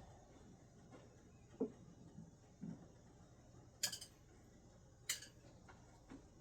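Screwdrivers thrown no-spin striking a target: two dull thuds, then two sharp knocks about a second and a quarter apart.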